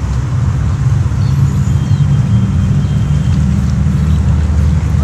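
Steady low outdoor rumble, its energy almost all deep in the bass, with no distinct events.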